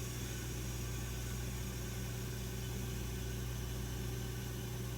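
Electric motor of a Wolff Twice As Sharp scissor sharpener running steadily with its diamond wheel spinning: a low, even hum.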